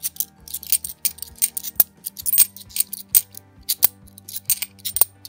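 50p coins clicking and clinking against one another as they are thumbed one by one off a stack held in the hand: a quick, irregular run of sharp metallic clicks.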